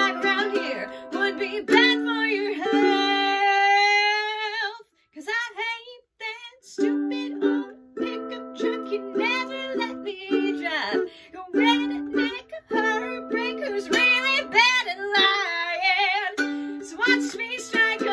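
A woman singing to a strummed ukulele, holding one long wavering note a few seconds in. The strumming stops briefly about five seconds in, then picks up again.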